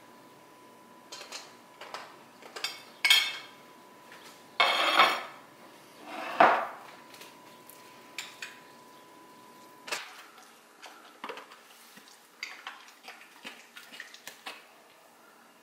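A metal spoon clinking and scraping against a plate, a glass dish and a stainless steel dog bowl as chicken and rice are spooned into the bowl. The loudest scrapes come around five and six seconds in, followed by sparser, lighter clicks.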